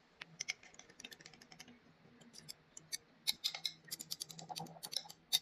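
A stirring rod swirled through water in a glass kettle jar, clicking and clinking irregularly against the glass. The clicks are light and scattered at first and come thicker from about three seconds in.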